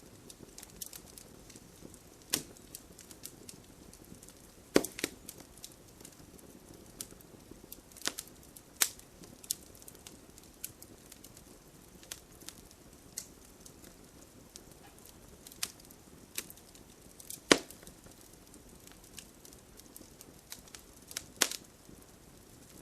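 Wood fire crackling, with a faint steady hiss of burning and irregular sharp pops and snaps, the loudest about 5 s and 17.5 s in.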